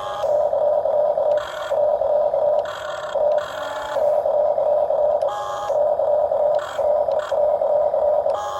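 Remote-control model excavator's small electric motors whining with a steady mid-pitched hum. The tone shifts every second or so as different movements start and stop.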